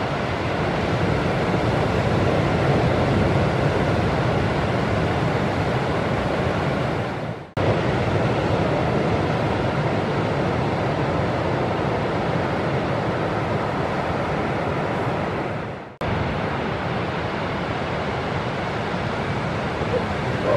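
Steady noise of breaking ocean surf mixed with wind on the microphone. It fades out and cuts straight back in twice, about seven and a half and sixteen seconds in.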